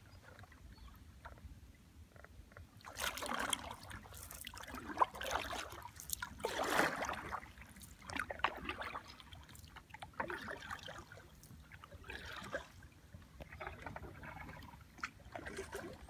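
Kayak paddle strokes in calm water: the blades dip and pull with a splashy swish, and water trickles off them, about one stroke every couple of seconds.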